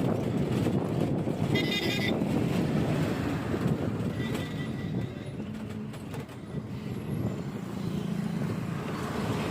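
Vehicle and road noise with a low rumble of wind, as when travelling along a highway. A short horn toot sounds about a second and a half in.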